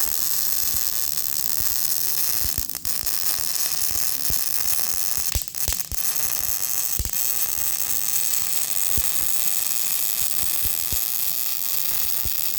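MIG welding arc sizzling and crackling steadily as a suspension gusset is welded on, with two short breaks in the arc about three and five and a half seconds in.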